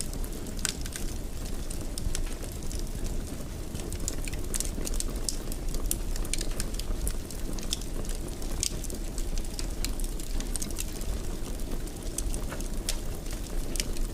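Wood fire burning in a fireplace: a steady low rumble of flames with irregular sharp crackles and pops throughout.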